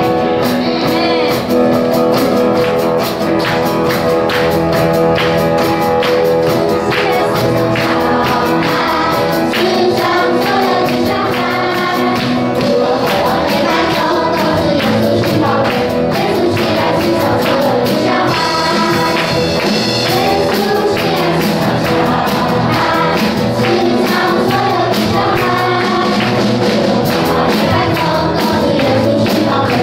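A children's worship group singing a praise song together into microphones, with music accompaniment and percussion keeping a steady beat.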